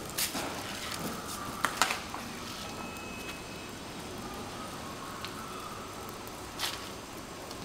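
Steady low background noise broken by a few short sharp clicks: a close pair about two seconds in and one more near the end.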